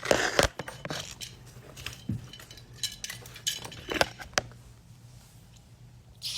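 A few sharp metallic clinks and rattles: a cluster near the start, and two more about four seconds in.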